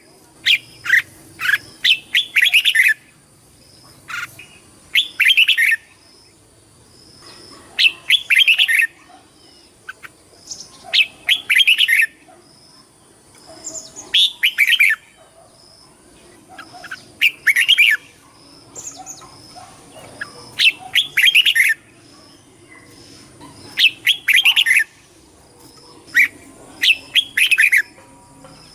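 Red-whiskered bulbul singing: short, fast phrases of chirping notes, each about a second long, repeated roughly every three seconds.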